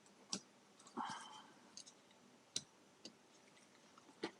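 Faint, scattered metallic clicks and taps, about five in all, from a pin punch and the pistol's small steel parts as the hammer pin is worked out of a Tanfoglio Stock Master frame, with a brief scrape about a second in.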